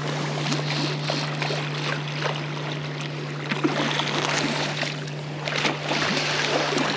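A boat's motor hums steadily under a rushing, splashing water noise, with scattered small knocks and clicks.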